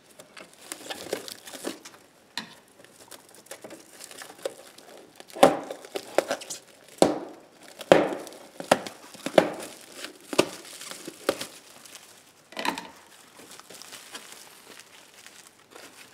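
Clear plastic wrapping being slit with a knife and pulled off a metal equipment case, crinkling and tearing irregularly. It is loudest in the middle stretch.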